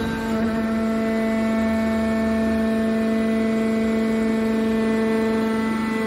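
Hydraulic power unit of an aluminium baler running, its pump and motor giving a steady pitched hum.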